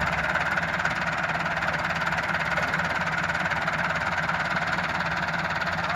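Massey Ferguson 385 tractor's diesel engine running steadily while driving a wheat straw chopper-blower, a continuous drone with a steady higher whine over it.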